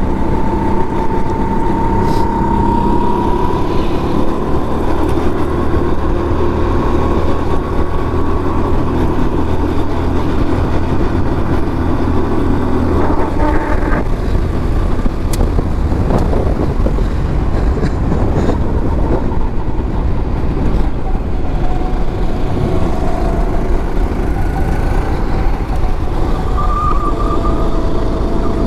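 Go-kart engine running hard at racing speed, heard from on board the kart, its note shifting with the throttle through the corners and changing clearly about halfway through.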